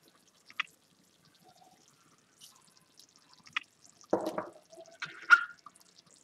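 Light kitchen clatter of a metal spoon and pan around the simmering meat sauce, with faint wet drips. There are a few isolated clicks, then a louder knock about four seconds in and a sharp ringing clink about a second later.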